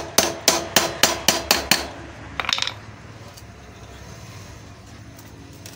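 A hammer strikes a 14 mm spanner on the swingarm pivot shaft nut of a Honda CD 70 to knock the stiff nut loose. There are about eight sharp metallic blows at roughly three a second, then a brief clink about two and a half seconds in.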